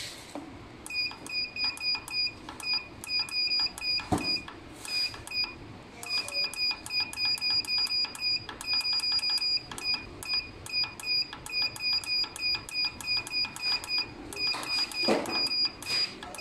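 A heat press's digital temperature controller beeping in a quick, even run as a button on its keypad is held, the set value stepping down with each beep, about three to four short high beeps a second. A dull knock about four seconds in and another near the end.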